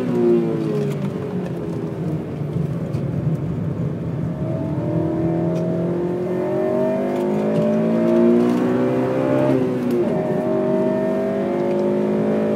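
Honda Civic Type R FN2's four-cylinder VTEC engine pulling hard, its revs climbing steadily for several seconds, dropping sharply at a gear change near the end and then climbing again.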